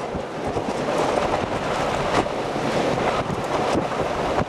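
Hurricane wind blowing across the microphone: a steady rushing noise that rises and falls slightly.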